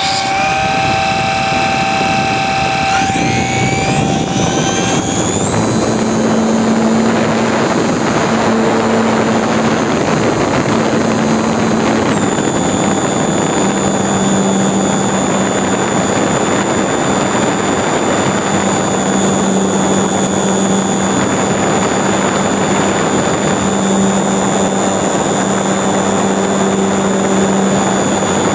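Electric motor and propeller of a HobbyZone Super Cub RC plane, heard from a camera on board. The motor whine rises as the throttle opens a few seconds in, then holds steady in flight and dips slightly about twelve seconds in, over a constant rush of propeller wash and wind.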